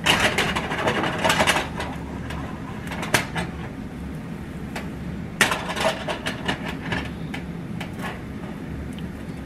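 Kitchen utensil clinking and scraping against a batter bowl and frying pan in two short bursts, one at the start and one about halfway through, with a single click between them, over a steady low hum.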